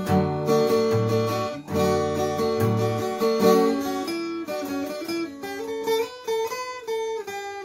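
Steel-string acoustic guitar with a capo, picked with the fingers: a melody over bass notes, thinning to single melody notes with sparse bass in the second half.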